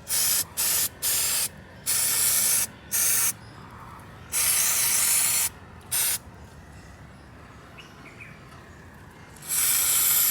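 Aerosol can of brake parts cleaner spraying onto a car's disc brake in a series of short hissing bursts, followed by a quiet pause and then a longer spray near the end. The solvent is being used to clear debris blamed for a dragging noise when braking.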